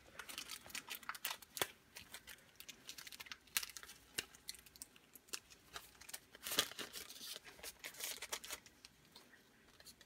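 Plastic packaging being torn open and crinkled by hand: a scatter of sharp crackles and rustles, busiest a little past halfway.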